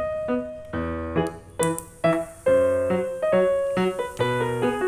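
Background piano music, single struck notes in a steady rhythm. From about a second and a half in, a faint hiss of eggplant slices frying in hot oil sits under the music.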